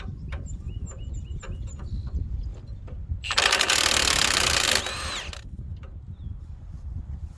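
An impact wrench hammers on a rusted, penetrant-soaked bolt on a disc tiller's hitch in one burst of about a second and a half, starting about three seconds in, then winds down with a short falling whine. Light clicks of tools are heard before it.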